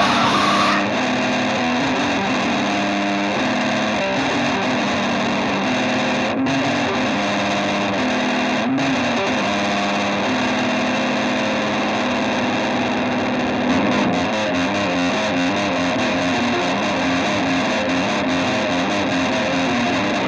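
Heavily distorted, effects-laden electric guitar music: a dense wall of noise over a repeating low figure, with no singing. About two-thirds of the way through, the low figure changes to a quicker back-and-forth between two notes.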